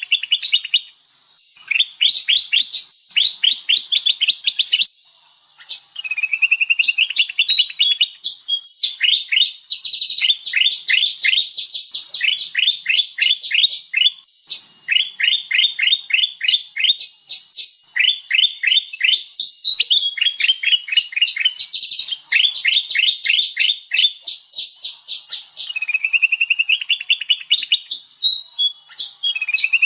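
Sooty-headed bulbul (kutilang) calling from a bird-trapping lure recording: loud bouts of rapid, sharp downslurred chirps, several a second, lasting one to three seconds each and broken by short pauses, with a few rising chattering phrases near the start and end.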